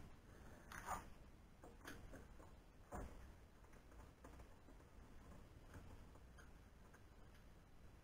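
Near silence with a few faint handling clicks and rustles about one, two and three seconds in, as hands work at the CNC machine's aluminium frame and corner plate.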